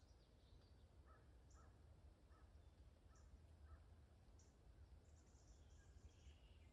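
Faint birdsong in woodland quiet: a run of about five short calls in quick succession, with thin high chirps scattered through, over a low steady rumble.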